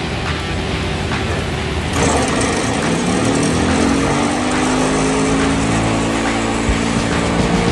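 Sterling SH30T excavator-mounted vibratory pile hammer driving a steel sheet pile into the ground: a steady mechanical drone that grows louder about two seconds in, its pitch sagging slightly.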